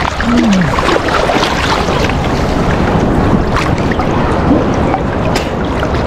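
Choppy seawater sloshing and splashing around people wading chest-deep, with wind buffeting the microphone and a few sharper splashes. A short falling voice sound comes just after the start.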